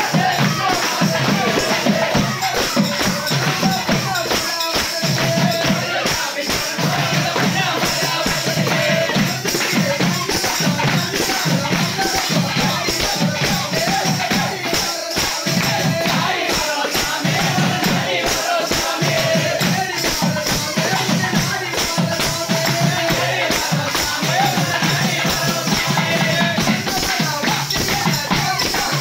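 A group of men singing a Tamil devotional song together, with jingling tambourines keeping a steady beat and hand-clapping.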